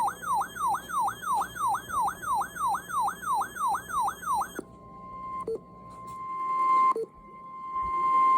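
Electronic emergency alert tones. A siren-like sweep falls in pitch and repeats rapidly, about three and a half times a second. About four and a half seconds in it switches abruptly to a steady single tone near 1 kHz, like the 1050 Hz warning alarm tone that announces a weather warning on NOAA Weather Radio.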